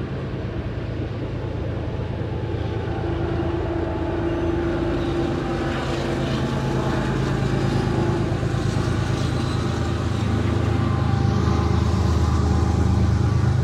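CN (Canadian National) train running, a steady low rumble and hum that gets gradually louder.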